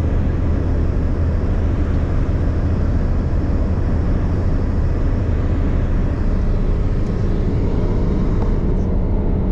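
A car driving at motorway speed, heard from inside: a steady low rumble of tyres on the road and engine.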